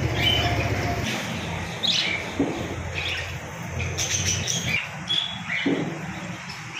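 A flock of caged budgerigars chirping and chattering, with many short high chirps scattered throughout, over a low hum that fades after about a second.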